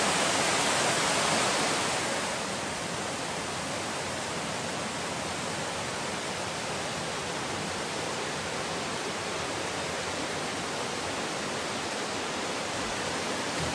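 Mountain stream rushing over rocks and small cascades: a steady rush of water, a little quieter from about two seconds in.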